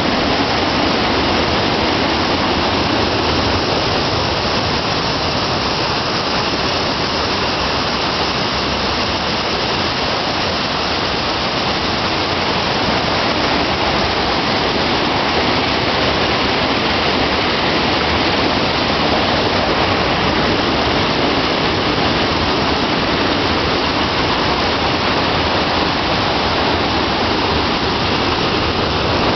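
A heavy flow of white water pouring down a small concrete spillway and rushing through a stone channel: a loud, steady rush of water.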